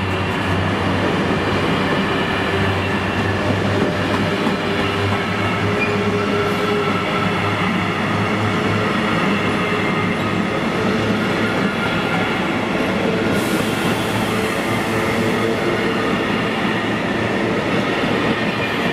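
Freight train of covered hopper wagons behind a Class 66 diesel rolling past close by: a steady, continuous noise of steel wheels running on the rails, with faint high tones held over it.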